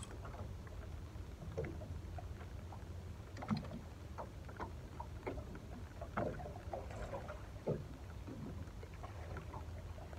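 Low rumble of wind on the microphone and water lapping against a small boat's hull, with scattered light knocks and clicks while a fish is played and reeled in on a spinning rod.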